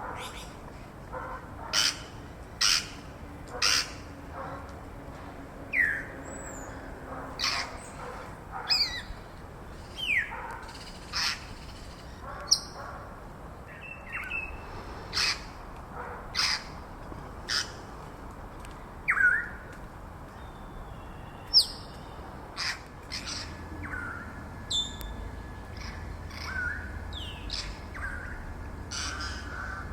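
Grey parrots calling: a run of loud, short whistles and squawks, one every second or two, many of the whistles sliding down in pitch.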